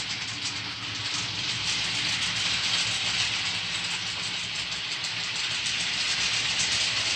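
Model train running along the layout track: a steady hiss with a low rumble underneath.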